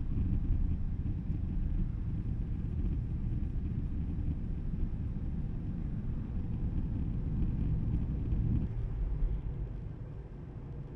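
Road and tyre noise of a Tesla electric car driving, a low rumble with no engine note, which drops off about nine seconds in.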